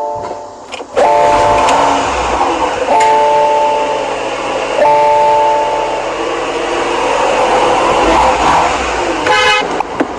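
Car horn honked three times, each blast lasting about a second with roughly a second between them, then a short final toot near the end, over a steady rushing background noise.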